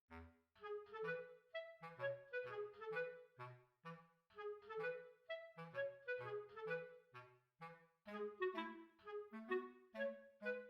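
Background music: a bouncy tune of short, quick notes played by clarinet-like woodwinds.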